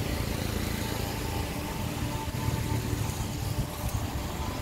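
Street traffic on a wet road: motorcycle and car engines running, a steady low hum under a constant hiss.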